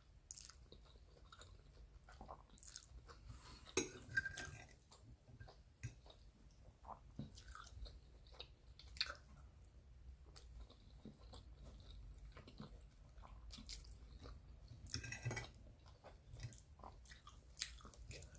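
A person chewing spaghetti close to the microphone, with soft wet mouth clicks and smacks scattered throughout. It is a little louder about four seconds in and again around fifteen seconds.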